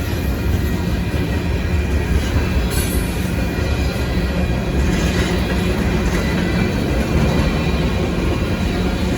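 Manifest freight train's cars rolling past with a steady rumble of steel wheels on the rails.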